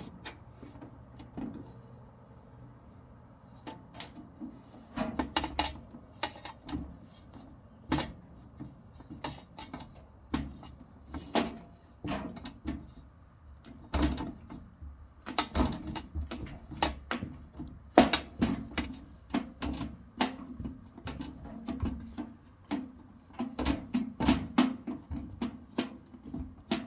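Irregular clicks, taps and knocks of a screw being worked by hand into the sheet-metal body of a tool cabinet, with the metal panels knocking as they are handled. The screw is stiff to drive and does not tighten properly. The clicks come more often in the second half.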